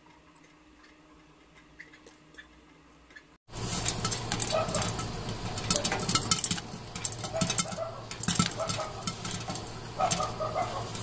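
Popcorn kernels popping in hot ghee in a covered kadai with a glass lid. There are a few faint pops at first. Then, about three and a half seconds in, a sudden loud run of dense, rapid pops begins, with popped kernels clinking against the lid and pan as the batch comes into full popping.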